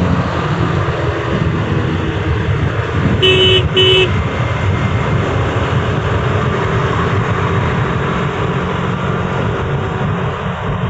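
Steady road-traffic noise with a heavy low rumble, with two short beeps of a vehicle horn about three seconds in.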